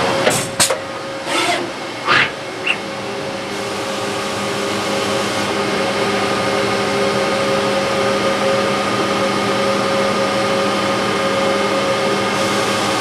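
MPM stencil printer running: a steady mechanical hum holding several even tones. A few sharp clicks and knocks come in the first three seconds.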